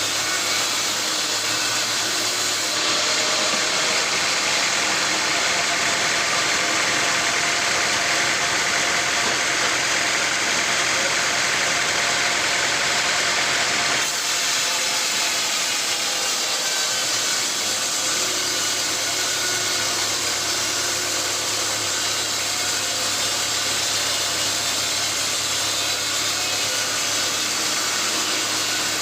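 Sawmill machinery running steadily: a constant engine-like hum under a loud, even mechanical noise, with no distinct cuts or impacts. The sound changes abruptly about three seconds in and again about halfway through.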